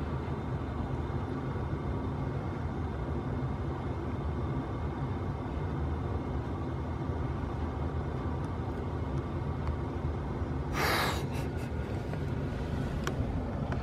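Vehicle engine running steadily at a low, even rumble, with one short breathy rush about eleven seconds in.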